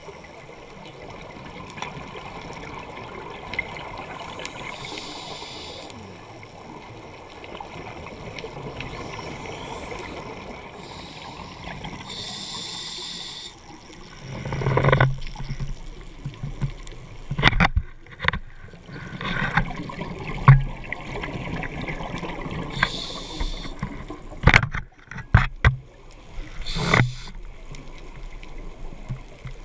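Underwater sound of a scuba diver: exhaled regulator bubbles gurgle every few seconds over a steady hiss. From about halfway, a string of sharp knocks and thuds, loud and irregular.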